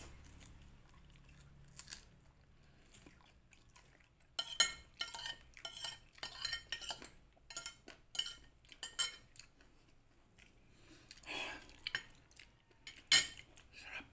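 Metal fork and spoon clinking and scraping against a plate: a quiet start, then from about four seconds in a string of sharp, irregular clinks. The loudest clink comes near the end.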